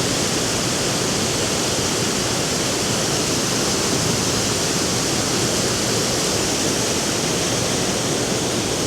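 Waterfall on a limestone river, a steady, unbroken rush of falling water.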